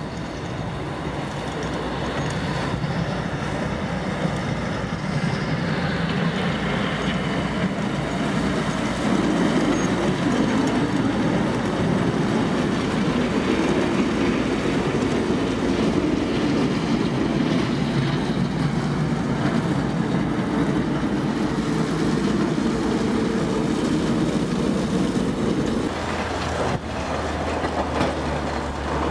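Plow truck passing with its front plow blade down on the snowy road: a loud, steady grinding rumble of engine and blade that builds up over the first several seconds. Near the end it drops to a lower, steadier engine drone as the truck turns away.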